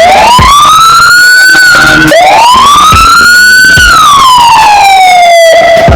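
Senken CJB 200 SA electronic siren sounding a loud wail. Its pitch rises, drops and rises again to a peak, then falls slowly near the end.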